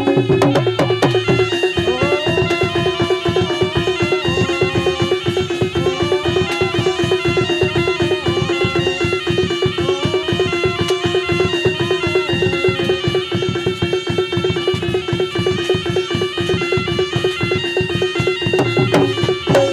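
Reog gamelan music: a reedy, shawm-like melody gliding over a steady drone, with fast, dense drumming and percussion.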